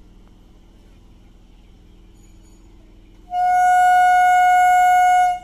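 An EMU train's horn sounding one steady, single-pitched blast of about two seconds, starting a little over three seconds in and cutting off sharply, over a faint low rumble of the approaching train.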